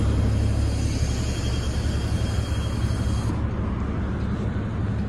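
An old transit bus's engine idling with a steady low rumble, and a faint high hiss that stops about three seconds in.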